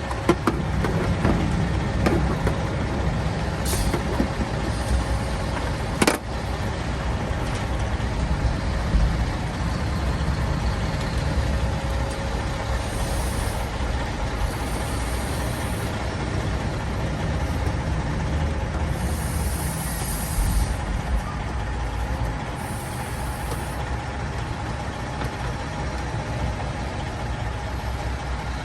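Heavy truck diesel engine idling steadily, with a sharp click about six seconds in and several short high hisses of air later on.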